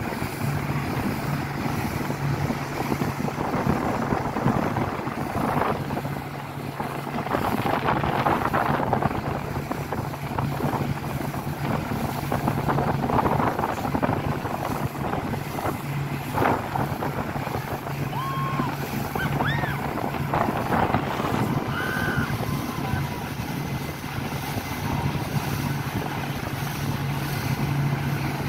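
Suzuki outboard motor running steadily at speed, towing a banana boat, over the rush and splash of the boat's wake, with wind buffeting the microphone.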